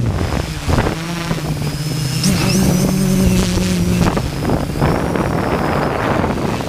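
Hexacopter's electric motors and propellers droning, their pitch stepping up a little about two seconds in, then sinking into the noise past the middle. Gusty wind, up to about 25 knots, buffets the onboard microphone.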